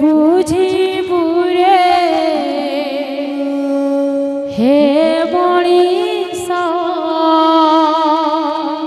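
A woman sings a Sambalpuri kirtan devotional song through a microphone, holding long wavering notes, with instrumental accompaniment.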